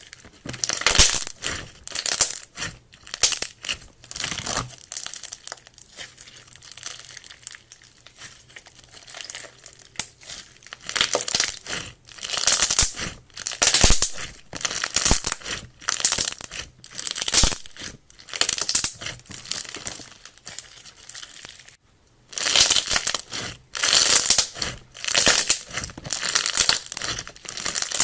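Slime being squeezed and pressed by hand, giving repeated crackling, squelchy bursts about a second apart, with a brief pause about three-quarters of the way through.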